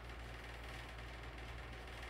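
Quiet room tone: a steady low hum under a faint even hiss, with no distinct sound.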